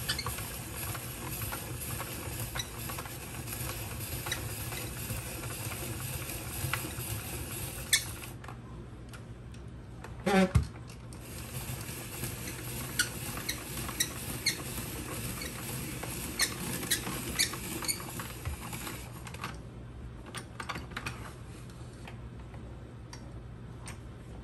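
Hand-crank spiralizer cutting yellow squash into thick spirals: irregular clicks and ticks of the crank and blade as the squash is shaved and ribbons drop onto the counter, with a brief squeak about ten seconds in.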